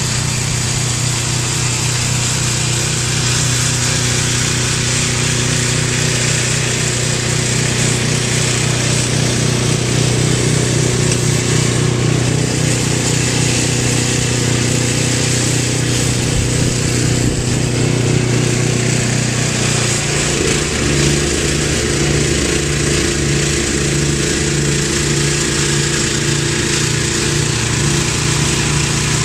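A small engine running steadily, its note shifting about twenty seconds in, over a constant hiss of wind noise.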